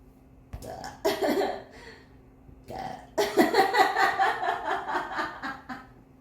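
A woman burping, brought up by massaging her back: a few short burps, then a long one of about two and a half seconds from about three seconds in.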